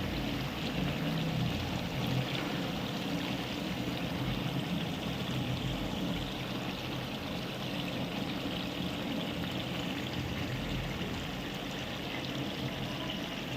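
Sliced onions frying in hot oil in a large pan, a steady sizzle as they cook down toward golden brown.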